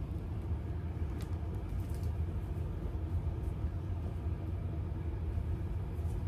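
Steady low rumble of background noise, with a few faint clicks about a second and two seconds in.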